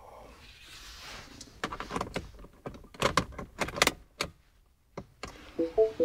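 Clicks and knocks inside a car while the ignition is switched off and back on, with the sounds bunched together a couple of seconds in. Near the end comes a short electronic chime of a few quick tones.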